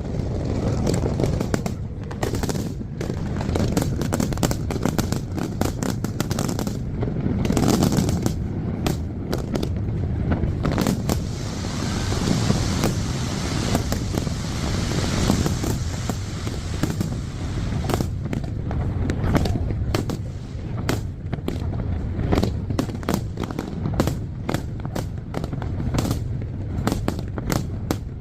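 Fireworks display: a dense, rapid run of shell bursts and booms over a low rumble, with a stretch of crackling fizz from about 12 to 16 seconds in.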